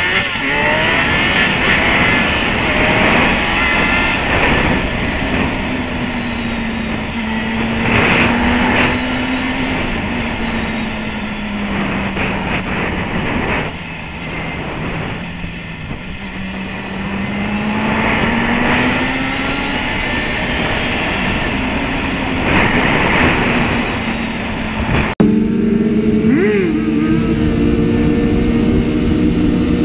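Motorcycle engine revving up and running at speed on the street, its pitch slowly rising and falling as the throttle changes. About 25 seconds in the sound cuts abruptly to another ride with a steadier engine note.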